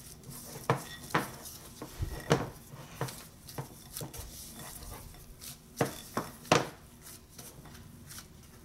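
A gloved hand mixing and pressing soft mooncake crust dough in a glass mixing bowl: irregular knocks and clicks of the hand and bowl against the glass, the loudest a little after 2 seconds and about 6 seconds in.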